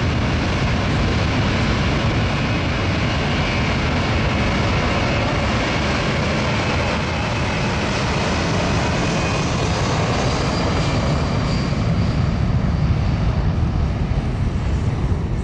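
Four Pratt & Whitney F117 turbofan engines of a C-17 Globemaster III running loudly and steadily, a dense jet noise with a faint whine; the higher part of the sound softens over the last few seconds.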